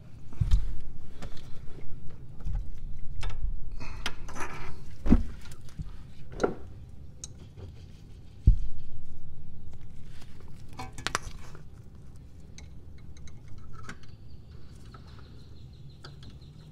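A steel flathead screwdriver prying and scraping at metal parts of a car's power steering rack, with scattered metallic clicks and clinks, a few sharper knocks, and low bumps.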